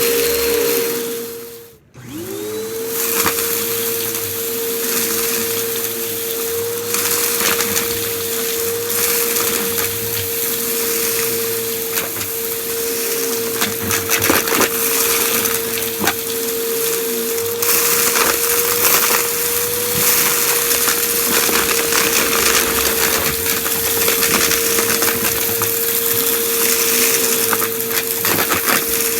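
Vacuum cleaner running with a steady motor whine, with crunchy debris crackling and ticking as it is sucked up. About two seconds in, the motor cuts off briefly, then spins back up to speed.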